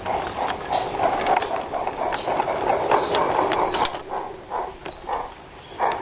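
16mm-scale garden-railway goods wagons rolling past on 45 mm gauge track, their wheels clicking steadily over the rail joints at about three clicks a second.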